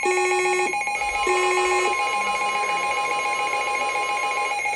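NOAA Weather Radio sounding an alert: two buzzy beeps a little over a second apart over a steady electronic warble, then the long steady weather radio warning alarm tone, which starts about a second in and cuts off near the end. It marks a new warning being issued.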